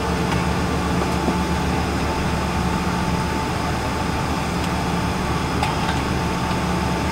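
Cabin noise of a Boeing 777-300 airliner taxiing with its engines running: a steady rumble and hiss with a constant high whine and a low hum.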